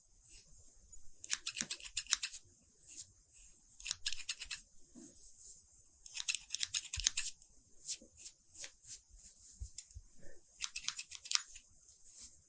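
Hair-cutting scissors snipping in four quick runs of rapid snips, with scattered single snips between them.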